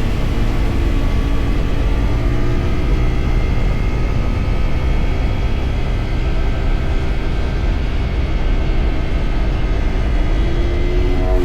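CFMoto 450SR motorcycle's parallel-twin engine running under way at a fairly steady speed, with heavy wind rush, its pitch rising near the end as it picks up revs.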